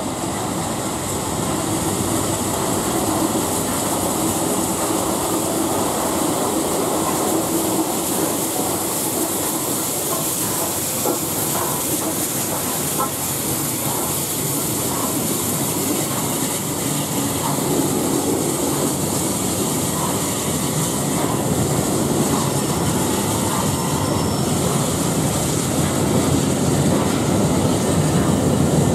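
Southern Railway Battle of Britain class 4-6-2 steam locomotive 34067 'Tangmere' rolling into a station platform and passing, followed by its coaches. The wheels clack over the rail joints, with faint squeals as it slows to call. The noise grows louder near the end as the coaches pass close by.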